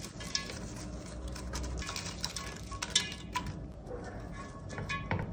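Scattered light clicks and patter as cooked rice is ladled with a metal spoon onto mutton in an aluminium pot, with herbs sprinkled in. There are small ticks throughout and a few sharper knocks about a second, three seconds and five seconds in.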